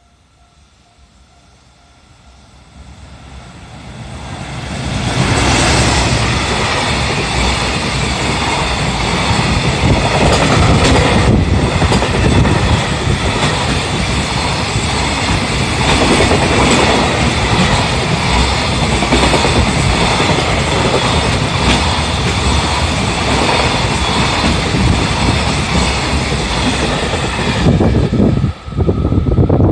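Freight train hauled by a JR Freight EF210 electric locomotive passing over a level crossing. The noise builds over a few seconds as the locomotive approaches, then holds as a long steady rumble of the wagons' wheels on the rails. It drops away suddenly near the end as the last wagon clears.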